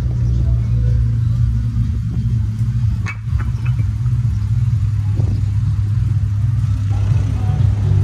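Dodge Challenger's engine rumbling deep and steady at low revs as the car rolls slowly out of a driveway and past. A short click about three seconds in.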